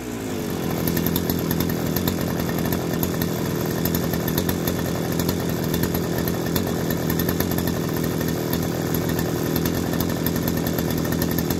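Two-stroke engine of a Stihl 480 brushcutter idling steadily on the ground, test-run after its clutch was reassembled with a loose washer fragment removed, the fragment that had been catching between the clutch shoes and drum and making a metallic noise.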